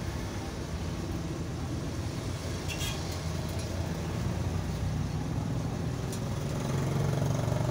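Steady low engine rumble of road traffic, swelling louder near the end, with a brief click about three seconds in.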